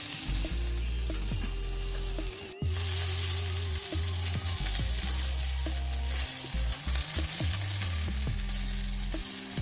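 Whole chicken roasting in a tandoor, sizzling steadily, with a brief break about two and a half seconds in.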